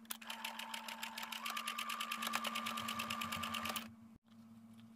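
Home electric sewing machine stitching in a fast, even run, its motor whine stepping up slightly about a second and a half in, then stopping a second before the end. It is sewing the first, outer pass of a French seam.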